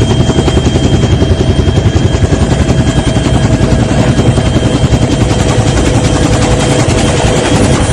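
Helicopter running, its rotor giving a rapid, steady chop with a steady whine over it.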